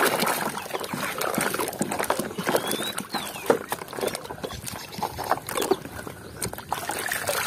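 A hand sloshing and squelching through thick wet mud in a plastic bucket, with irregular wet splats and sucking clicks throughout. A couple of faint short chirps come about three seconds in.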